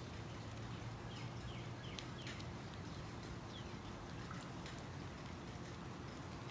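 Hand basket weaving: scattered light clicks of the weaving material being handled, with a few short, high, falling squeaks about a second to three and a half seconds in, over a steady low hum.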